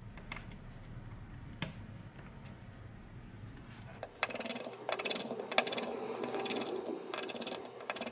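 Small phone parts and a tweezer being handled on a workbench: a few light clicks, then, about four seconds in, some four seconds of dense clicking and rattling of plastic and metal pieces.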